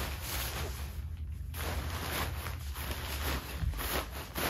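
Tent rainfly fabric rustling in repeated swishes as it is folded and smoothed by hand, over a steady low hum.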